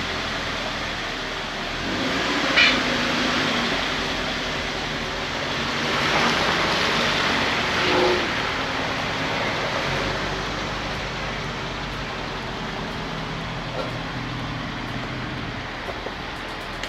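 Car with a swapped-in FA20 four-cylinder engine driving, the engine running under load over steady road noise. It swells louder briefly about two, six and eight seconds in.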